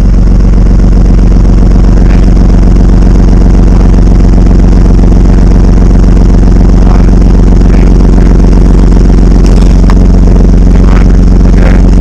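A motor vehicle engine idling steadily and loudly, close to the microphone.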